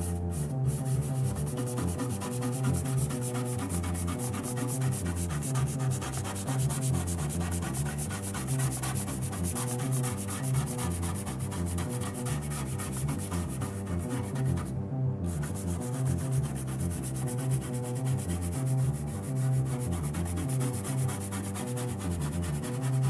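Synthesizer music from a Moog Taurus 3 bass synthesizer: a moving line of deep bass notes under a steady hissing, rasping noise layer that cuts out briefly about fifteen seconds in.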